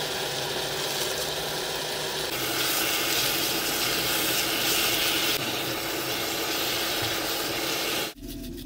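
Enoki mushrooms and tomatoes sizzling in a frying pan as a silicone spatula stirs them: a steady hiss that grows brighter in the middle while they are tossed, then cuts off just before the end.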